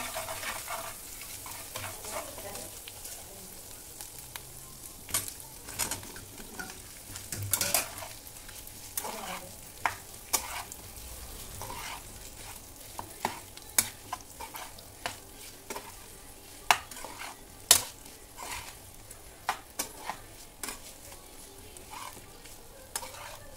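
Oil and spices sizzling in a frying pan as a spatula stirs them, then cooked diced potatoes being tossed and mixed in the pan, with frequent sharp scrapes and taps of the spatula against the pan. The sizzle is strongest in the first couple of seconds.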